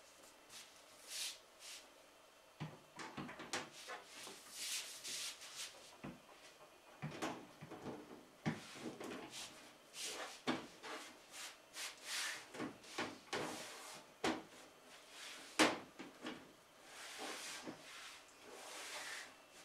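Metal side panel of a PC tower case being fitted and pushed into place: scraping and rubbing with a string of irregular knocks and clicks, the sharpest knock late on.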